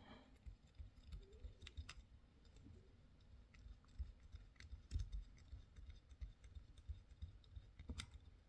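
Faint, scattered clicks and small knocks of hands working a small screw back into a metal-and-plastic airsoft pistol assembly, with a louder knock about halfway through.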